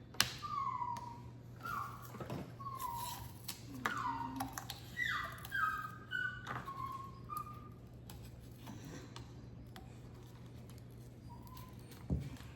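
A dog whimpering: a string of short, high whines, each falling in pitch, coming thickly for the first several seconds and then only now and then, with a few light knocks in between.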